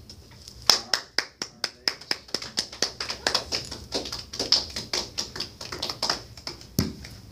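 A small group clapping, starting under a second in and going on for about six seconds, the claps uneven and overlapping. A single deeper thump near the end.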